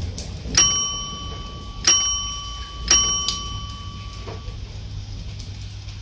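Three sharp bell dings about a second apart, a notification-bell sound effect added with an on-screen subscribe button. Each ding rings briefly, and the lowest note of the ringing lingers a few seconds. Underneath is a steady low background of rain.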